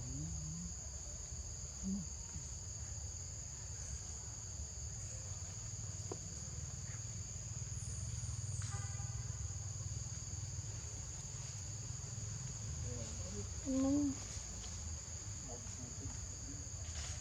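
Steady high-pitched insect chorus, holding two unbroken tones throughout, over a low rumble. A brief, louder low sound comes about fourteen seconds in.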